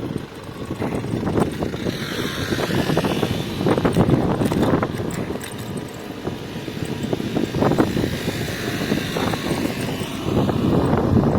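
A motor vehicle going past: engine rumble with tyre hiss that swells a couple of seconds in and fades out over several seconds.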